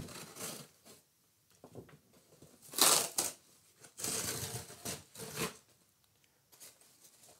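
Cardboard shipping box being slit with a bayonet blade and torn open by hand in several rough rips, the loudest about three seconds in.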